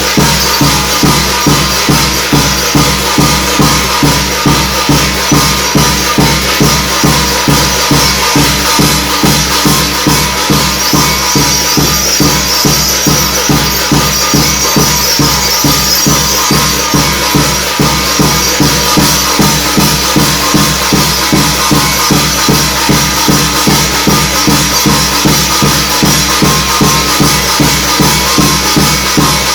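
Korean shamanic gut ritual music: drums and metal cymbals played together in a fast, steady beat, about three strokes a second, without pause.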